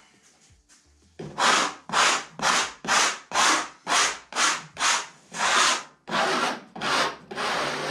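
Yellow plastic spatula scraping over tinted decorative plaster in quick repeated strokes, about two a second, starting about a second in. The scraping knocks the tint off the raised areas to bring out the relief pattern.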